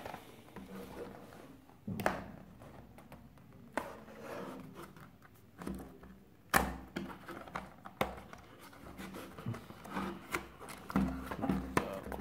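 A cardboard retail box being handled and opened: card rubbing and scraping, broken by a few sharp knocks against the table, the loudest a little past halfway through.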